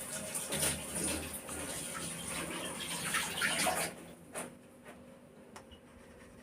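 Kitchen tap running for about four seconds, then shut off, followed by two light knocks.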